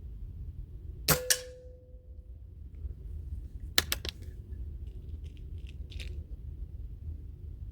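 A .22 air rifle fires a pellet about a second in: a sharp double crack followed by a short ringing tone. A few seconds later comes a cluster of sharp metallic clicks, then lighter clicks.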